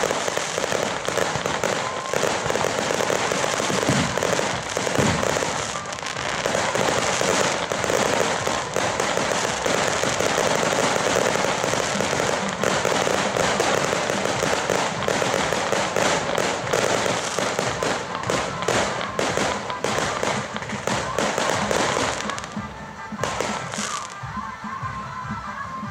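Fireworks and firecrackers going off in a dense, continuous barrage of crackling and popping. The barrage thins out about three-quarters of the way through, leaving a few last cracks.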